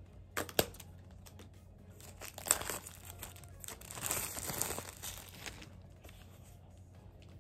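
Apple Pencil retail box being opened by hand: two sharp clicks early, then crinkling and tearing of the packaging, loudest about four to five seconds in.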